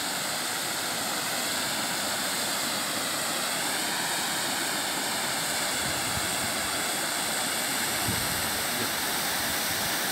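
Water spilling over a small concrete irrigation weir, a steady rush of falling water.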